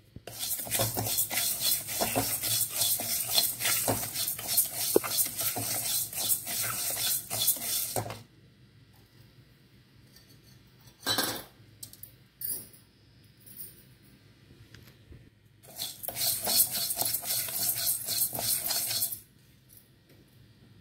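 Split moong dal being dry-roasted and stirred with a wooden spatula in a metal kadai: the hard grains rattle and scrape against the pan in a long spell of about eight seconds, then a quiet pause with a couple of single knocks, then a shorter spell of about three seconds.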